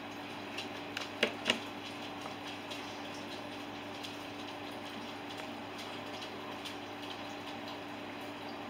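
Steady hissing background noise with a faint hum. About a second in come two sharp clicks, a quarter-second apart, as a hot glue gun is set down on the craft table.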